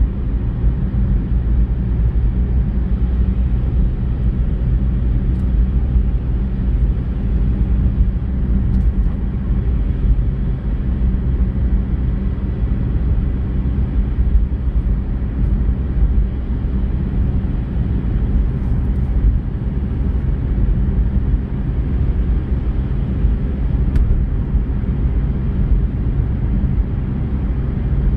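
Steady low rumble of a car driving at road speed, heard from inside the cabin: engine and tyre noise on a wet road.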